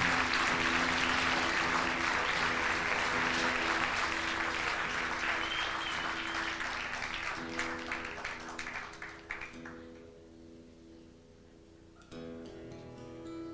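Audience applauding, with someone whistling, over soft guitar notes. The clapping dies away about ten seconds in, and an acoustic guitar starts strumming near the end.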